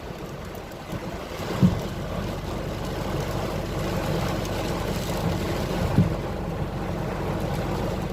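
Storm wind and heavy rain battering a ten-wheel truck, with the truck's engine running low underneath. Two short thumps, about a second and a half in and again near six seconds.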